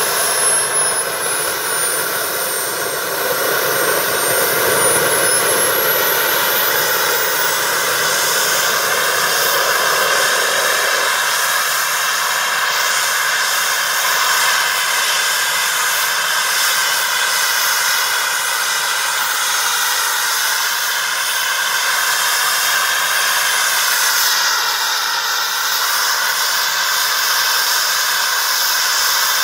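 RA Microturbines 500 kerosene-fuelled model jet turbine running in its test housing: a loud, steady jet rush with a high whine that dips and then climbs steeply in the first several seconds as it spools up. The low rumble drops away about eleven seconds in.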